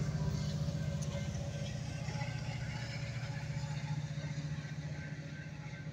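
Metra diesel locomotive passing at a grade crossing, its engine drone slowly fading as it pulls away and the bilevel coaches roll by. A crossing bell rings faintly over it.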